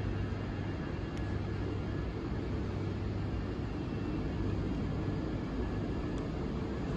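Steady low rumble of a moving suburban electric train heard from on board, with a faint steady whine over it.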